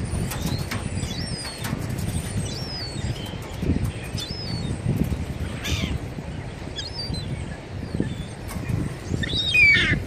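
Gulls calling again and again in short, wavering cries, with one louder, falling call near the end, and wings flapping as the birds come in over the bread. Wind rumbles steadily on the microphone underneath.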